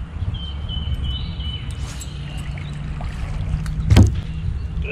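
Steady low hum and water noise on a bass boat while a largemouth bass is fought, with one sharp knock about four seconds in as the fish is swung up out of the water with the rod.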